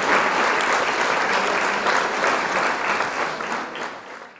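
Crowd applauding with dense clapping, fading out near the end.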